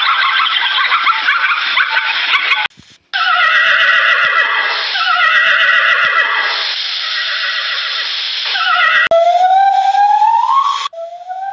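Horses whinnying: several neighs, each falling in pitch, after a dense noise that cuts off about two and a half seconds in. Near the end a rising, whistle-like call starts.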